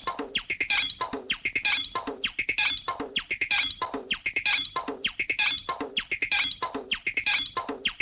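Electronic music clip built from choppy, rapid stuttering sounds, like turntable scratching, in a pattern that repeats about once a second.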